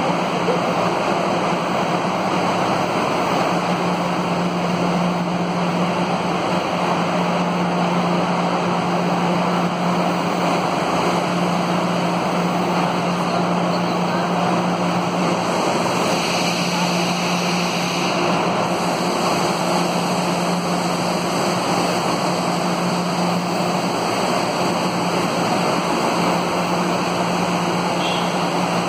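Metro train standing at the platform with its doors open, a steady hum and rushing noise of its running equipment, with a brief higher hiss a little past the middle.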